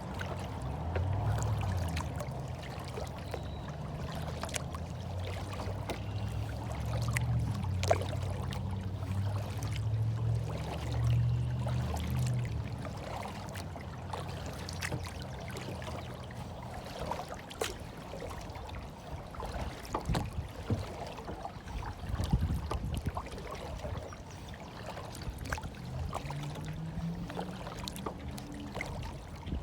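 Water flowing and trickling, with many small splashes and clicks, over a low rumble that fades out about twelve seconds in and comes back near the end.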